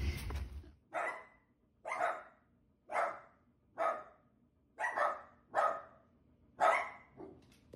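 Dog barking: seven sharp barks, roughly one a second.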